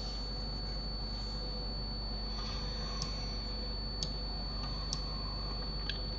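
A few faint clicks from computer input devices, about one a second in the second half, over a steady microphone hum and hiss with a thin high whine.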